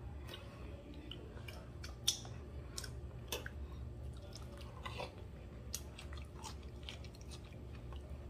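A person chewing a crunchy fried breaded pasta stick with the mouth closed: faint irregular crunches and mouth clicks.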